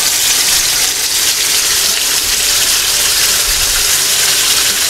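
Wet ground masala paste sizzling as it is tipped into hot oil in a kadai: a steady, bright hiss.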